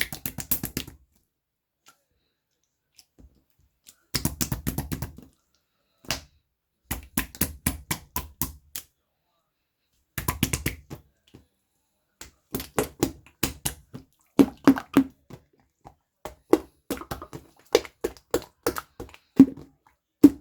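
Hands squeezing and kneading a soft squishy toy, giving bursts of quick sticky crackles and clicks that come in clusters of about a second with short pauses between them.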